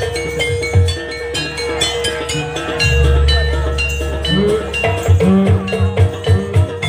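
Live Javanese gamelan music for a jaranan dance: bright struck metal notes over drum strokes, with a deep low stroke about three seconds in and a run of quick drum beats in the second half.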